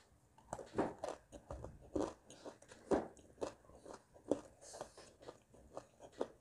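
A person biting into and chewing chunks of dry clay, an irregular series of crisp crunches, the loudest about one, two and three seconds in.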